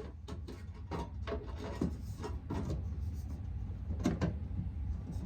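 Irregular knocks and clatter of things being handled, about a dozen in quick succession, over a steady low hum.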